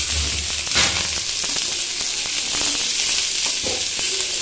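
Sliced onions frying in oil in a metal kadhai: a steady high sizzle, with a few scrapes and knocks of a spatula against the pan as they are stirred.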